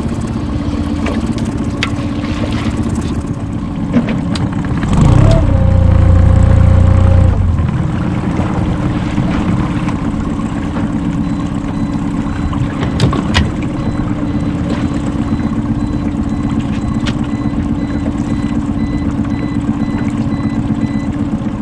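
Small fishing boat's outboard motor idling steadily, briefly opened up for about two seconds some five seconds in with a rising note and a heavier rumble, then settling back to idle. A few light knocks sound over the engine.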